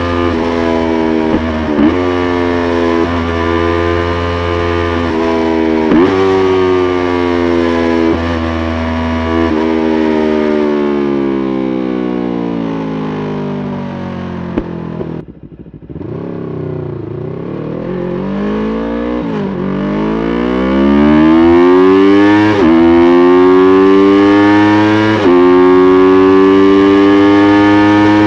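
A 2020 Yamaha YZF-R3's 321 cc parallel-twin engine accelerating through the gears, its pitch climbing and then dropping sharply at each upshift. About halfway through, the revs fall away and dip briefly, then it pulls up through several more upshifts.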